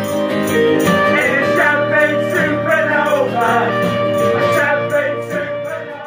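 A rock song with a male voice singing over guitar and a steady beat, fading down near the end.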